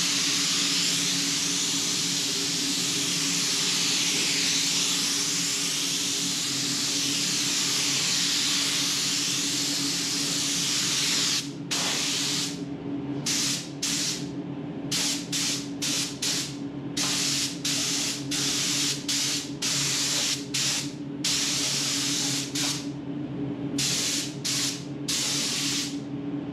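Air-fed gravity spray gun hissing as it sprays paint onto a car door. One continuous spray runs for about the first eleven seconds, then it breaks into short on-off bursts as the trigger is pulled and released. A steady low hum sits underneath throughout.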